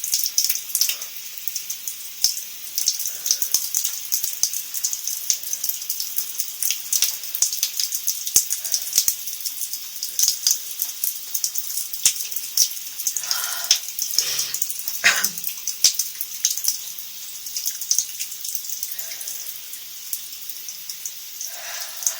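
Shower water running and spattering steadily, with a couple of brief voiced sounds from the person about two-thirds of the way in.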